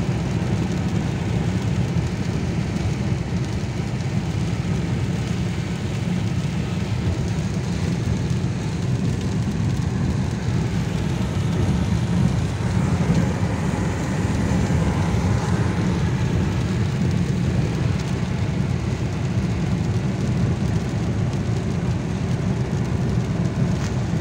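Steady low rumble of a car's engine and tyres heard inside the cabin while driving on a rain-wet road, with a fainter hiss of wet tyres and rain over it.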